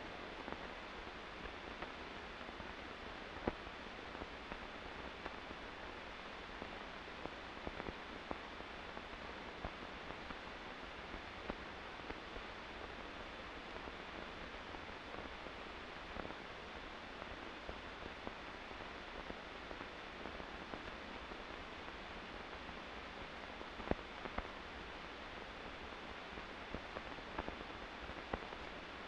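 Steady hiss of a recording tape with no programme on it, with scattered faint clicks and pops at irregular moments.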